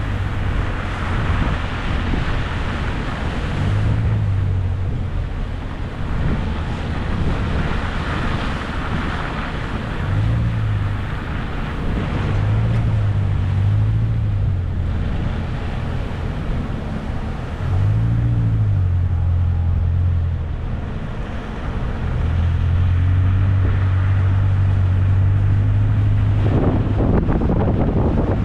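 A vehicle's engine drones as it drives along a wet, flooded road, rising and falling several times with the throttle and then holding steady, with tyres hissing through standing water. Wind buffets the microphone near the end.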